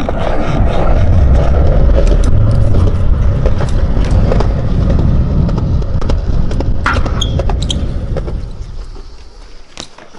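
Loud wind rumble on the microphone and BMX tyres rolling over skatepark concrete, with a few sharp clicks and knocks. The rumble fades over the last couple of seconds.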